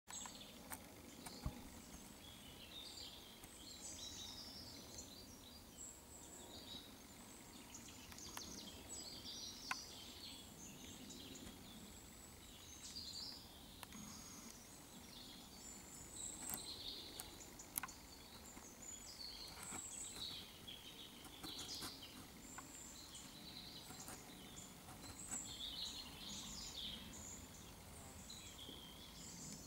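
Faint birdsong from several small birds, many short chirps and trills, over a low background hiss. A few sharp clicks stand out, about three times.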